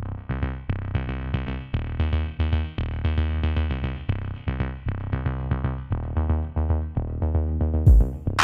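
Electronic background music with a steady drum-machine beat and synthesizer chords.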